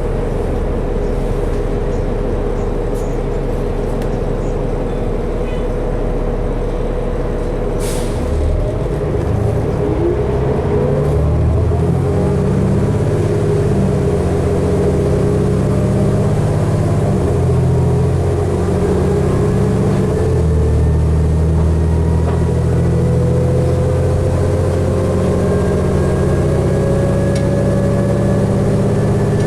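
2012 New Flyer D60LFR articulated diesel bus heard from inside: the engine runs at a steady low hum, a brief sharp sound comes about eight seconds in, then the engine grows louder and a rising whine follows as the bus pulls away and gathers speed.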